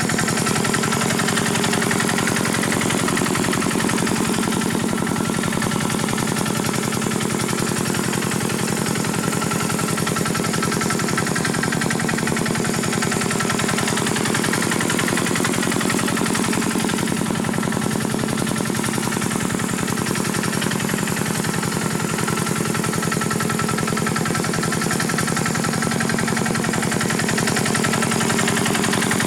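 Tractor engine running steadily at a constant speed, with a rapid, even train of firing pulses and a steady hum.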